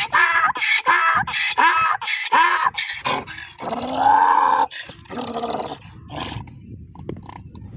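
Donkey braying: a fast run of short, high, wheezing cries, about four a second, then a long lower call that falls in pitch and a shorter one after it, as the bray winds down.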